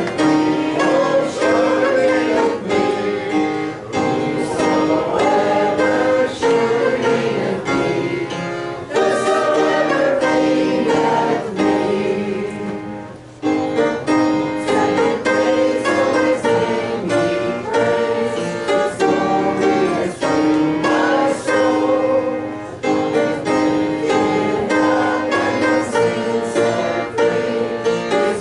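Church congregation singing a hymn together with instrumental accompaniment, with a brief dip about halfway through, as between lines.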